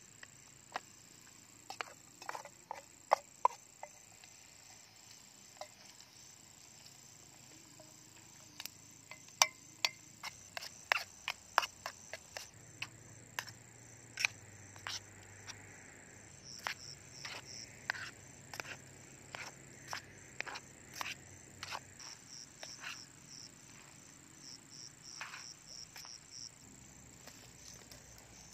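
Insects chirring in a steady, high, even drone, with many scattered sharp clicks and crackles over it, thickest in the middle stretch.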